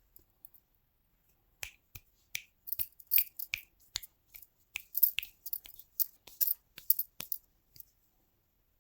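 A quick, irregular series of about twenty sharp snapping clicks, starting about a second and a half in and stopping near the end.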